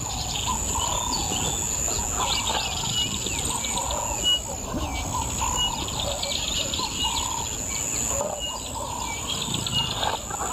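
Wild birds chirping and calling, with short high notes repeated every second or so over lower warbling calls, against a steady bush background.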